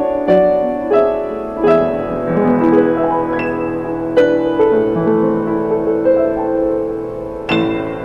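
Yamaha YU1C upright piano being played: a slow, legato passage of struck chords and melody notes that ring on, with a louder chord struck about seven and a half seconds in.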